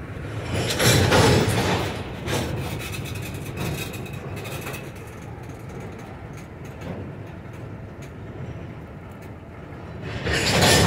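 Double-stack intermodal freight train rolling past: a steady rumble and rub of steel wheels on rail. It swells louder about a second in and again near the end.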